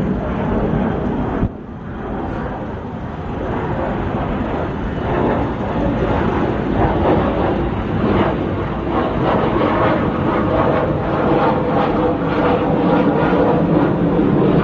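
Twin-engine jet airliner on landing approach, its engine noise a steady rumble that drops suddenly about a second and a half in, then grows louder as the jet nears.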